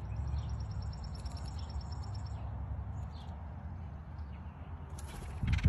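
Small birds chirping: a quick high twittering series over the first couple of seconds, then scattered faint chirps, over a steady low rumble. A short loud noise just before the end.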